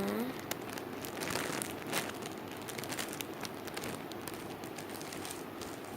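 Irregular crinkling and light crackling as a soft, slow-rising foam squishy toy is squeezed and handled.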